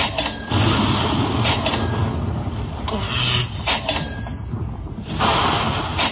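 Magic Pearl Lightning Link slot machine's bonus-tally sound effects as each pearl's value is added to the win: a short high chime followed by a noisy lightning-strike burst, repeating about every two to three seconds. A steady low rumble runs underneath.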